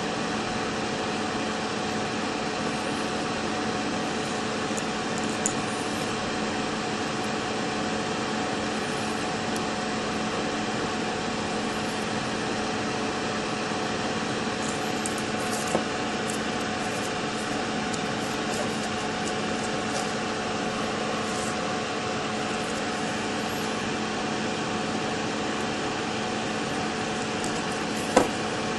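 Steady background hum and hiss with a few faint clicks, one sharper click near the end.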